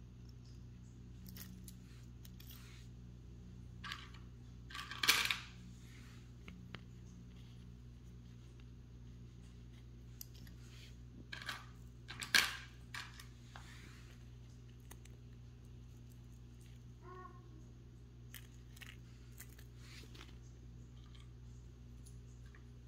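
Metal imitation jhumka earrings clinking as they are handled: a few scattered light metallic clinks, the loudest about five and twelve seconds in, over a steady low hum.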